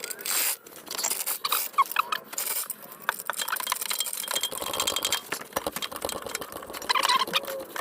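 Hand tools worked on a stubborn car wheel nut: an irregular run of sharp metal clicks, rattles and scrapes, with a few brief squeaks.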